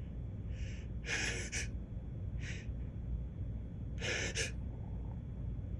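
A man's sharp, breathy inhalations, four in a row with the louder ones about a second and four seconds in: pre-sneeze gasps that build toward a sneeze that does not come, a false start.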